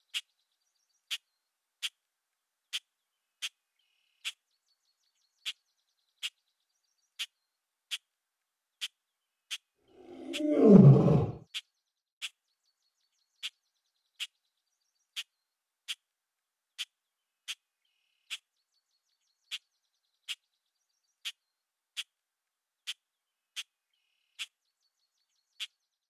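A steady series of short, sharp ticks, a little more than one a second, is heard throughout. About ten seconds in, a single loud, deep animal roar lasts about a second and a half.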